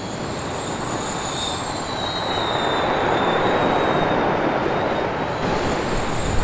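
Storm sound effect of rushing wind and surging sea. It builds to a peak in the middle, with a thin high-pitched whistle running over it.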